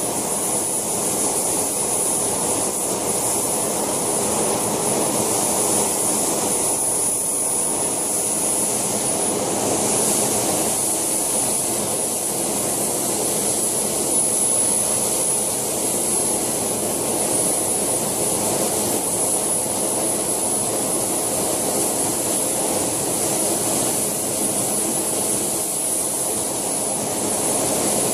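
JetCat PHT2 model turboshaft turbine running steadily in a radio-controlled Alouette II scale helicopter: a constant high-pitched whine over a steady rushing exhaust noise.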